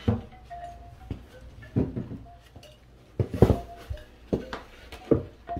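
Knocks and light scrapes of an MDF panel being shifted and set down against the floor and the boxing-in, five or so separate knocks with the loudest about three and a half seconds in.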